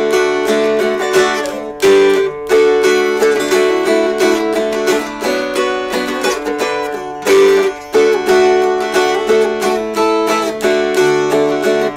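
Two mountain dulcimers played together in a duet, strummed in a regular rhythm, with the melody ringing over steady held drone notes.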